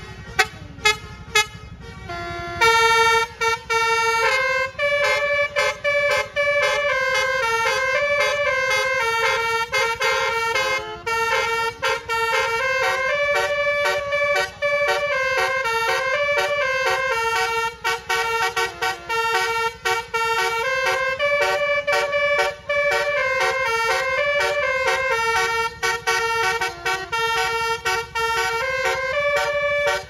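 Basuri musical air horn (telolet horn) on a bus: a few short blasts, then from about two and a half seconds in a continuous melody of quick stepping notes.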